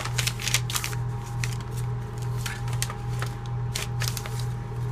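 Thick paper pages of a handmade junk journal being turned and handled, giving crisp rustles and flaps that come in clusters near the start, around the middle and near the end, over a steady low hum.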